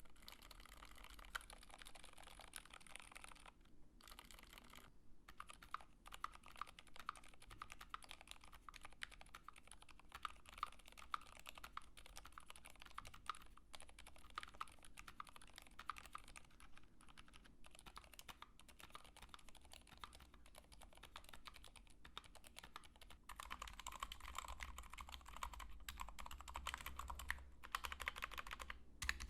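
Quiet typing on a Tofu WKL mechanical keyboard with lubed Zeal PC Sakurio silent linear switches and GMK keycaps: a steady, faint patter of soft key presses with a couple of brief pauses. The typing gets somewhat louder for the last few seconds.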